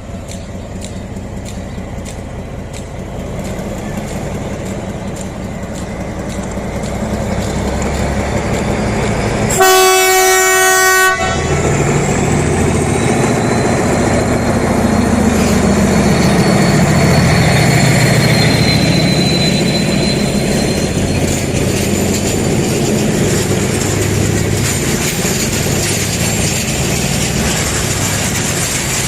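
Medway 1909, a CP 1900-class diesel locomotive hauling flat wagons, with its engine roaring and growing louder as it approaches. About ten seconds in it sounds one horn blast of about a second and a half, the loudest sound. A faint high squeal rises and fades in the middle.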